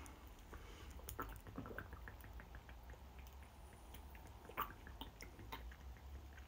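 A person drinking fizzy cola straight from a plastic bottle: faint gulping and liquid sounds with scattered small clicks, one a little louder about four and a half seconds in, over a low steady hum.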